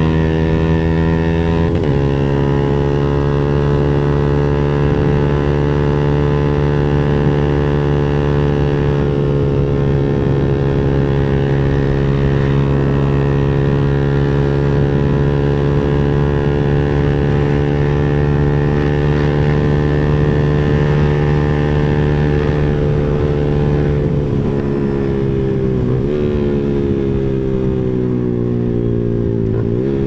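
Motorcycle exhaust through an aftermarket Pro Liner muffler while riding at a steady cruise. The engine note holds steady, dips briefly about two seconds in, and falls away near the end as the throttle eases before picking up again.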